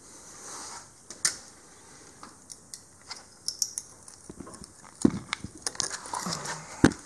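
Scattered light clicks and knocks of hands working the front axle, turning the wheel and shifting the freshly installed selectable locker, with two sharper knocks about five seconds in and near the end.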